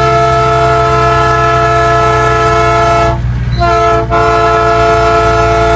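Train horn fitted to an Iveco Stralis truck, sounding several tones together in two long, loud blasts with a short break about three seconds in. The truck's engine runs steadily underneath.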